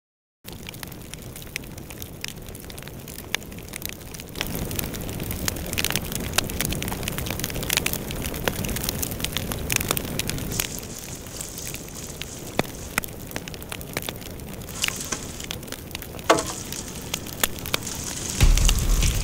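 A bonfire of pruned grapevine cuttings crackling and popping over a steady hiss, with many sharp snaps. Near the end a louder low rumble joins in.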